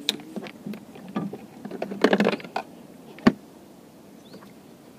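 Close handling noise as a small caught fish is unhooked with a thin metal tool: scattered clicks and scrapes, a busy patch of scraping about two seconds in, and one sharp click a little after three seconds.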